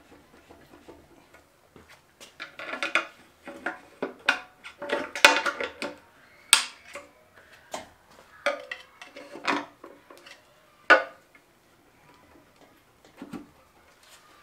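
A screwdriver prying and knocking at the stuck metal valve cover of a Honda K20 engine: irregular metallic clinks and knocks, loudest in the middle, with a last tap near the end.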